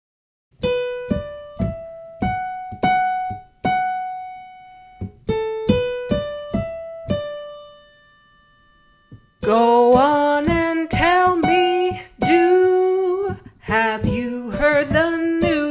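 Electronic keyboard with a piano sound playing the melody one note at a time, in two short rising phrases, each note struck and left to ring. After a short pause about halfway, a woman's voice sings the same tune, holding notes with vibrato.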